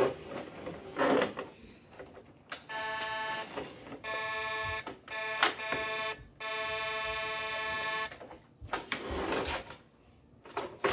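A toy truck's electronic horn sound effect, sounded four times in held, buzzy tones of about a second each between roughly 3 and 8 seconds in. Plastic clicks and rattles of the toy trucks being handled come before and after.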